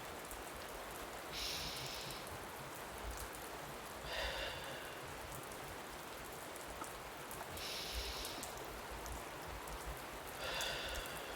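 Steady recorded rain, an even patter of falling rain. Soft brief swells rise over it about every three seconds.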